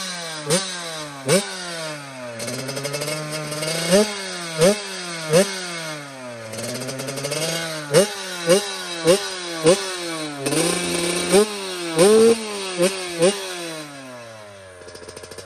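Yamaha YZ85's single-cylinder two-stroke engine being revved in about a dozen sharp throttle blips. Each snaps up in pitch and falls back toward idle, with a couple of slower climbs in between and one brief held rev about three quarters of the way through. Near the end the revs drop and the engine quiets.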